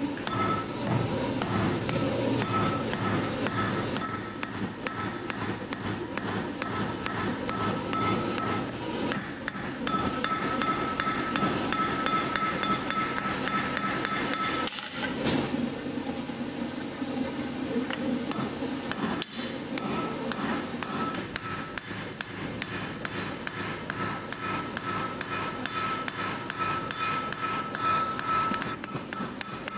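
Blacksmith's hand hammer striking a red-hot iron rod on an anvil in quick, steady blows. The anvil rings on a high, steady note under the strikes, with a brief pause about halfway through.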